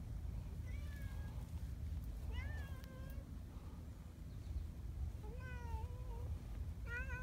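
Domestic cat meowing: four separate meows, the third the longest.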